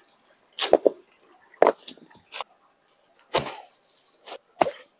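Stones being set down and knocked against one another on dry leaf litter: a series of irregular dull knocks with some rustling of leaves.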